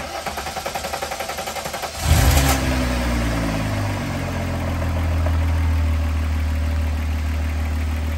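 VR6 engine cranking on the starter with a rapid, even pulsing for about two seconds, catching with a brief rev, then settling into a steady idle. This is the first start after an oil change, run for a few seconds to fill the oil filter before the level is checked.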